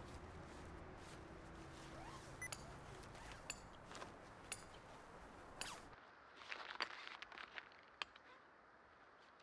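Near silence: a faint hiss with light clicks about once a second. The background drops away suddenly about six seconds in, followed by a brief flurry of sharper clicks and ticks.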